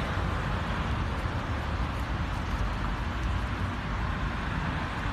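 Steady road traffic noise, a continuous low rumble of passing cars.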